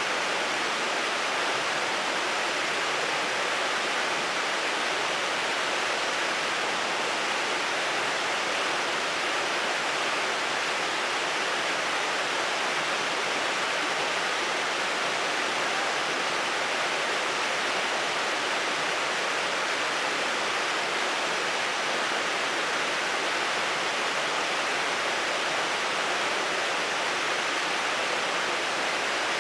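River water rushing over rocks in shallow rapids, a steady, even rush.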